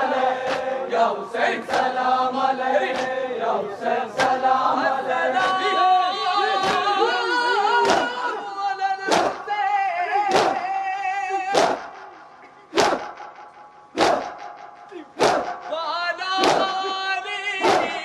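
A group of men doing matam, striking their chests with their hands in unison, the sharp slaps keeping time with a chanted lament sung by many voices. The slaps come about twice a second at first, then slow to about one every second and a bit, standing out more clearly over the voices in the second half.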